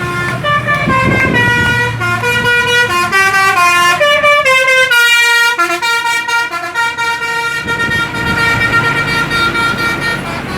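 Indonesian 'telolet' musical air horn on a bus playing a quick tune of short stepped notes, each held a fraction of a second, over a low engine rumble that drops away mid-tune and returns near the end.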